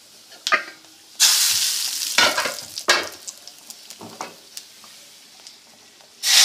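Hot-oil tempering (tarka) of garlic, cumin, curry leaves and red chilli: a brief sizzle about a second in and a few metal knocks of the pot lid and pans, then near the end a loud sizzle that starts suddenly as the hot tempering is poured into the pot of kadhi.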